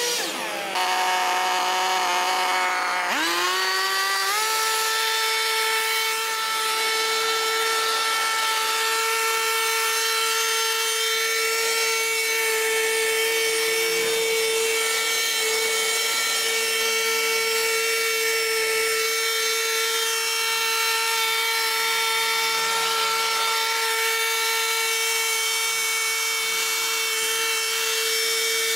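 A petrol grass cutter's small engine running at high speed while cutting grass. Its pitch drops right at the start, then it revs back up about three to four seconds in and holds a steady high note.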